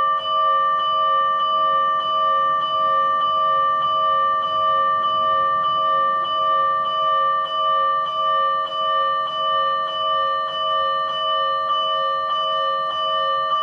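Fire-engine electronic warning bell from a TWS-5102V siren amplifier, the Tokyo Fire Department bell pattern, clanging at a steady slow rate of about three strikes every two seconds, each strike ringing on into the next.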